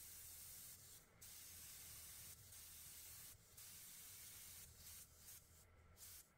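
Faint hiss of air escaping at a tire valve through the brass chuck of an XTM tire deflator, in several stretches broken by short pauses.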